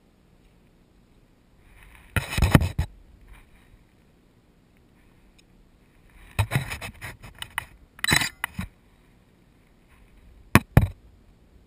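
Three clusters of close, sharp scrapes and clicks, loudest about two seconds in and with two quick sharp knocks near the end.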